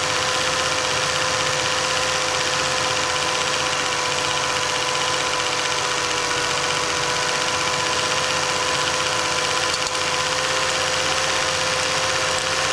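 Cine film projector running: a steady mechanical whirr and hiss with a constant humming tone, unchanging throughout.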